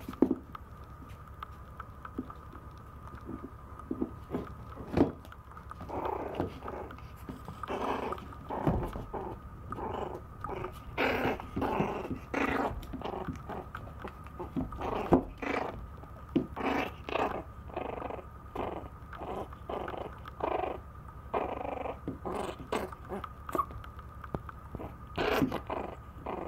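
Maltese puppy growling in many short bursts while wrestling with a ceramic dish, with a few sharp clacks of the dish against the floor.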